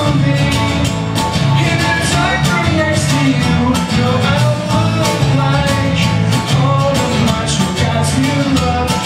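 A live rock band playing a song: guitars and a sung voice over a steady beat.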